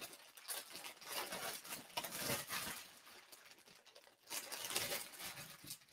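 Paper rattling and crinkling, faint and in uneven spurts, with a short lull about three seconds in.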